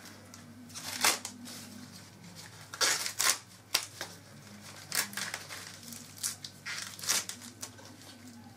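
Sweet corn husks being torn and stripped off the cobs by hand: a series of sharp, papery rips and rustles, loudest about a second in and again around three seconds in.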